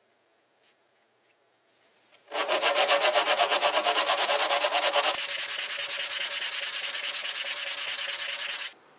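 Sanding wood: a fast, even back-and-forth rasping, about six strokes a second, that starts a couple of seconds in and stops shortly before the end. About halfway through the strokes turn lighter and thinner.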